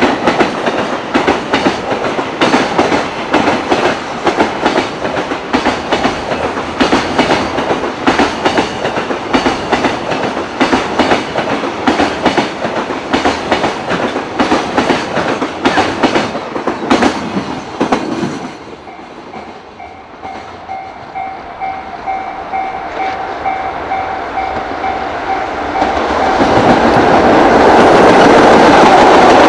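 Freight train wagons running fast over rail joints: a dense, rhythmic clatter of wheel clacks that stops abruptly about eighteen seconds in. A steady tone follows, then another train approaches and grows loud near the end.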